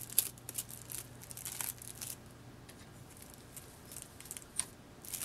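Clear plastic cling wrap crinkling as hands lift it off a small vise's jaws, in short, scattered crackles, most of them in the first couple of seconds.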